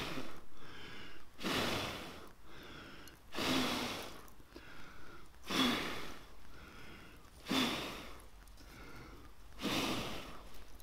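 A person blowing hard onto glowing charcoal embers to fan them: five long breathy blows, about two seconds apart.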